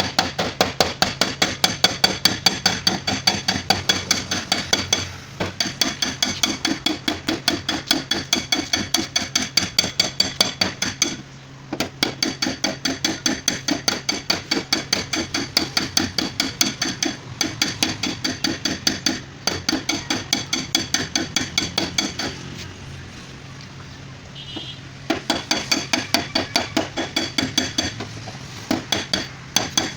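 A hammer beating out dents in a Honda car's sheet-steel boot lid: rapid, evenly spaced blows with a metallic ring. The blows come in runs, with brief stops and a longer pause of a few seconds past the middle.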